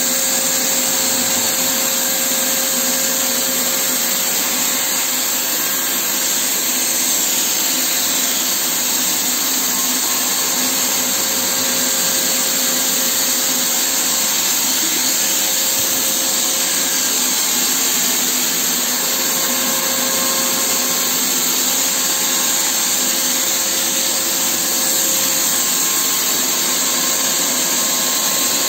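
Bosch PFS 5000 E paint sprayer running steadily: an even, loud air hiss with a constant motor hum as it sprays paint onto a wall.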